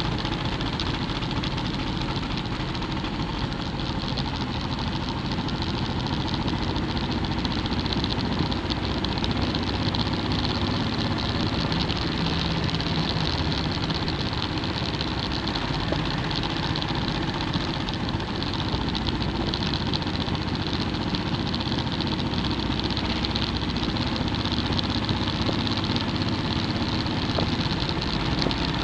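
Motorcycle engine running steadily at cruising speed, mixed with steady wind and road noise, as heard from a camera mounted on the moving bike.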